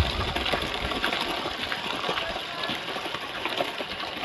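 Motorized cardboard model tractor rolling over dry, gritty dirt: a steady rough hiss scattered with small clicks.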